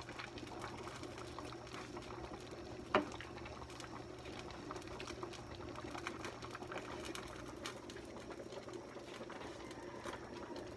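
A pot of coconut-milk mung bean stew simmering softly while a wooden spoon stirs it, with faint small clicks and one sharp knock about three seconds in.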